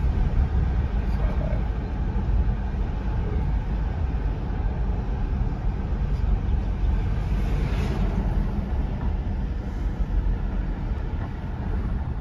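Road noise inside a moving car's cabin: a steady low rumble of tyres and engine. A brief swell of hiss about eight seconds in comes from an oncoming truck passing.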